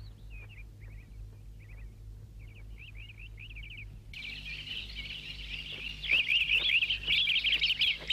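Birds chirping: a few scattered, quickly warbling chirps at first, then a dense run of rapid chirps from about four seconds in that grows louder about six seconds in.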